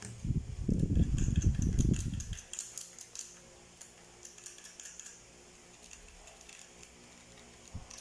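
Small metallic clicks and taps of tools and parts being handled at a repair bench, after a low rumble of handling noise in the first two seconds.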